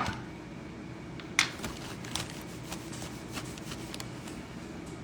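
A few light clicks and taps of kitchen handling, the clearest about one and a half seconds in, over a steady low room hum.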